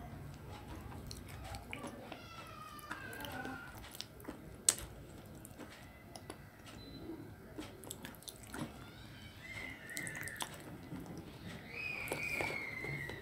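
Close-up mouth sounds of someone eating a soft paste off a spoon: chewing and lip smacks with scattered small clicks, and one sharp click about four and a half seconds in. A few faint pitched calls sound in the background, the last one falling slowly near the end.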